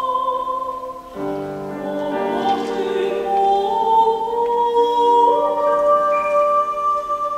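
Classical soprano singing a Japanese art song with grand piano accompaniment. A held note breaks off about a second in, then a new phrase climbs in steps to long sustained notes.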